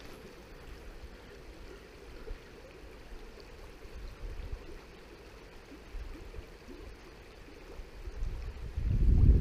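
A river running steadily in the background, faint, with small swells. Near the end a much louder low rumble of wind buffeting the microphone comes in.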